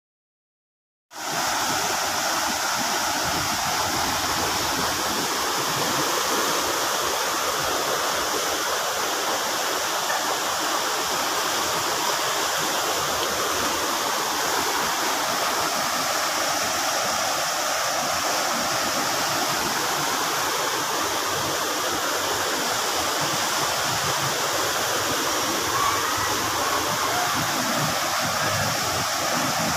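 Steady rushing of fast-flowing floodwater. It starts abruptly about a second in, after silence.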